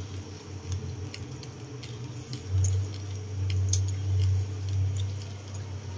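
Metal ladle stirring a thick masala in an aluminium pot: scattered light ticks of the ladle against the pot, over a low steady hum that grows louder in the middle.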